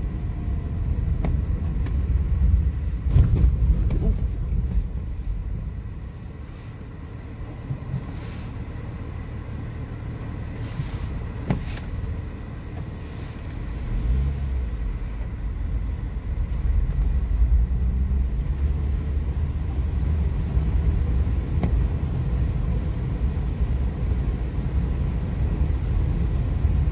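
Car driving on a wet lane, heard from inside the cabin: a steady low rumble of engine and tyres that grows louder about halfway through as the car drives into floodwater covering the road.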